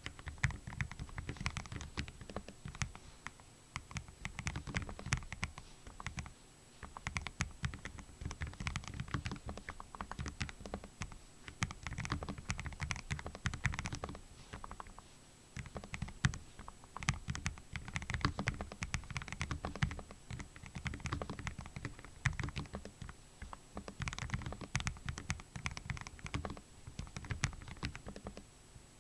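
Lofree Flow low-profile mechanical keyboard with gasket mount and Kailh Full POM switches being typed on steadily, a dense run of key presses broken by a few short pauses.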